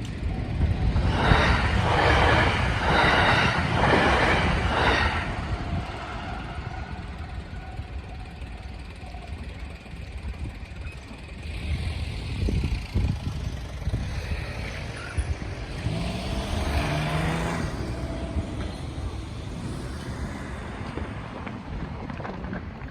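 Railway level-crossing warning alarm ringing in a steady rhythm, about two strikes a second, then stopping about five seconds in. Road-traffic rumble follows, with a vehicle passing near the end.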